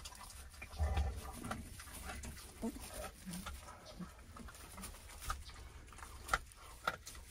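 Three-week-old Great Pyrenees puppies making brief low grunts as they move about, with pine-chip bedding rustling and crackling under them. There is a low thump about a second in.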